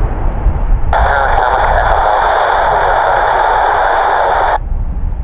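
Air traffic control radio transmission with no readable words: about a second in, a burst of radio hiss and static switches on, holds for about three and a half seconds and cuts off abruptly, over a steady low rumble.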